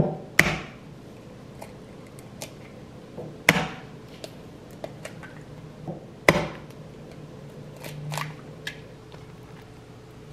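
Eggs being cracked open one after another: three sharp knocks about three seconds apart, with lighter clicks of shell in between.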